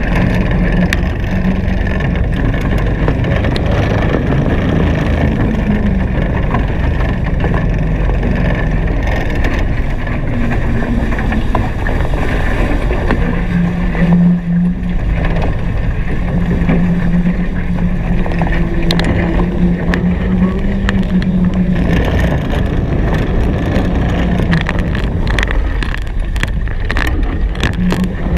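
Wind buffeting the microphone and water rushing past a Hobie Cat 16 catamaran under sail at speed, with a low steady hum that fades in and out.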